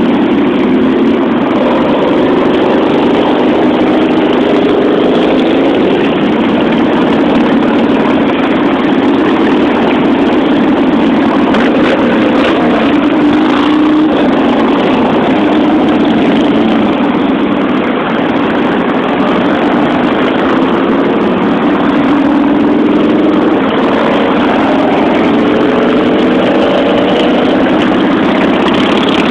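A long line of cruiser and touring motorcycles riding past one after another, their engines making a loud, steady mix whose pitch slowly rises and falls as each bike goes by.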